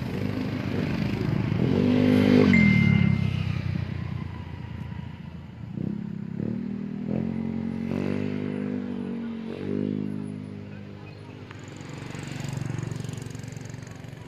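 Motor vehicle engines passing close by on a road. The loudest passes about two seconds in, its engine pitch dropping as it goes by, and more engines follow and fade later on.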